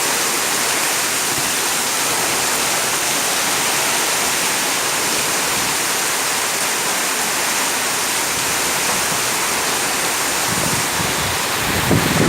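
Heavy rain pouring down in a storm, a steady dense hiss. From about ten seconds in, gusts of wind start buffeting the microphone with low, uneven rumbles.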